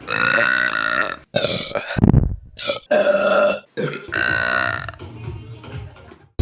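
Women burping, one after another in quick succession: about six or seven loud, drawn-out burps, each cut straight into the next, the last trailing off before the end.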